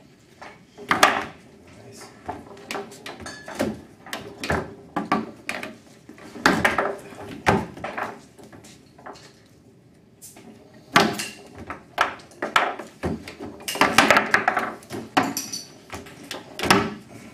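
Foosball game in play: irregular sharp clacks and knocks as the ball strikes the plastic players and the table walls and the rods slam and rattle. The hardest strikes come about a second in and in a dense flurry near the end.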